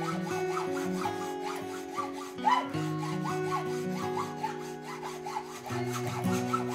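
Hacksaw cutting through a screwdriver's steel shaft in steady back-and-forth strokes, over background music.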